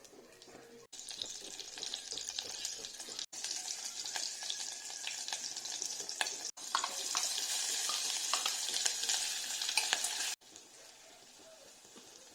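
Food frying in hot oil in a pan, a steady sizzle with short clicks and scrapes of a spoon stirring. It starts about a second in and cuts off abruptly about ten seconds in.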